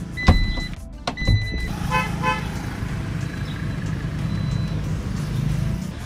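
Geely Okavango Urban power tailgate operating: two short electronic beeps, each with a sharp knock as the latch releases, then the tailgate's electric motor hums steadily for about four seconds as it lifts.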